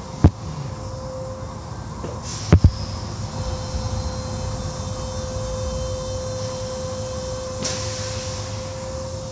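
Automatic car wash machinery heard from inside the car: a steady rumble with a constant hum, two sharp knocks a little after the start and about two and a half seconds in, and a brief rush of hiss about three-quarters of the way through.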